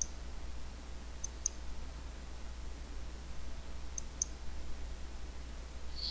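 Computer mouse button clicking a few times, mostly in quick press-and-release pairs, over a steady low hum.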